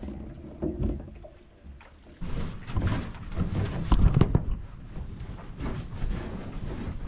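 Hollow knocks and bumps of an aluminum canoe being handled at a dock, with scraping and rustling, the loudest knocks about four seconds in.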